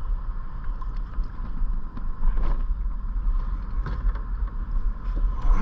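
Wind buffeting the microphone as a low, uneven rumble, with a faint steady whine underneath and a few faint ticks.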